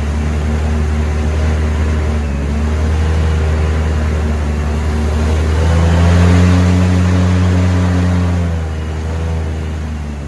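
Airboat engine and propeller running loud, the engine note climbing about six seconds in and easing back down a couple of seconds later.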